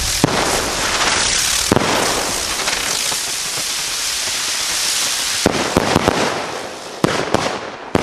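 A chain of Funke Donnervögel flying firework 'birds' hissing as they fly through the air. Sharp bangs come once near the start, once about two seconds in, then several in quick succession in the second half as the birds end in their reports.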